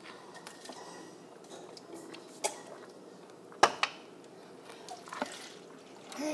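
Mostly quiet, with a few sharp clicks. Three stand out, the loudest a little past the middle.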